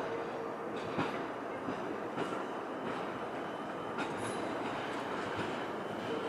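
R32 subway train rolling slowly through the switches toward the listener, a steady rumble of wheels on rail with a few sharp clicks as the wheels cross the joints and frogs.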